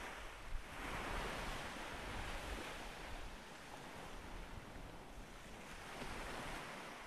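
Faint ocean surf: a soft, steady wash of waves that swells about a second in and again near the end.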